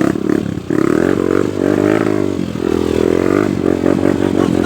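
Trail motorcycle engine revving, its pitch rising and falling as the throttle is worked, with a brief drop about two and a half seconds in.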